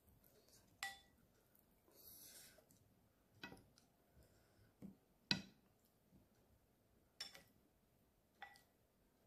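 Metal spoon and fork clinking against ceramic plates as food is scooped up: about six light, separate clinks, the loudest a little past the middle.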